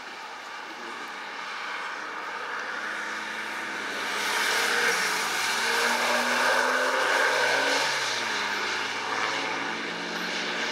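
Dodge Caliber SRT-4 driving past on a wet track. Its engine note climbs as it comes on, with the hiss of tyres throwing up spray loudest in the middle, then the note falls away near the end as it moves off.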